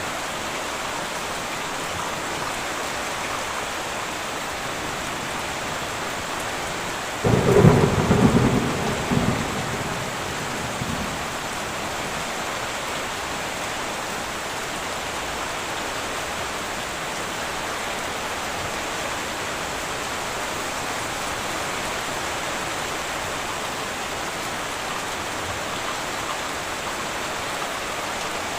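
Steady heavy rain on a metal roof, with one sharp thunderclap about seven seconds in that rumbles on for a few seconds and dies away.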